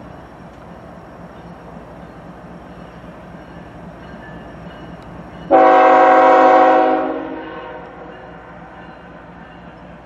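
Horn of an approaching CN GE ES44AC diesel locomotive sounding one blast of several tones together, cutting in suddenly about five and a half seconds in, holding about a second and a half and then fading. Under it the lead locomotives' diesel engines run steadily.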